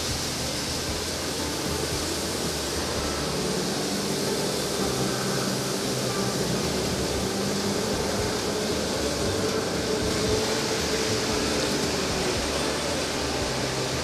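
Steady machinery hum and hiss in a working olive oil mill, from the processing machines and a forklift moving a crate of olives. A faint tone that drifts slightly up and down comes in about four seconds in.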